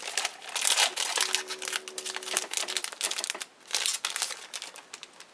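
Foil trading-card booster packs crinkling and rustling as they are handled, in dense irregular crackles, with a brief low hum near the middle.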